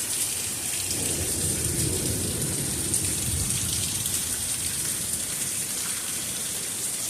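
Heavy rain pouring down steadily in a thunderstorm, with a low rumble of thunder about one to three seconds in.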